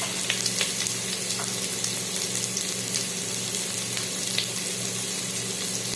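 Onion sizzling in a little hot oil with garlic and ginger in a pan: a steady frying hiss with a few light clicks, over a steady low hum.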